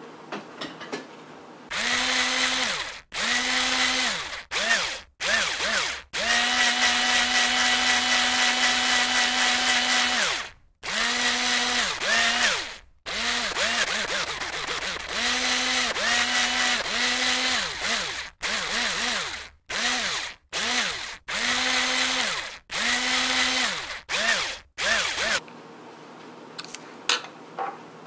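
Electric drill motor running in many short bursts, each one spinning up to a steady whine and winding back down, with one longer run of about four seconds near the start.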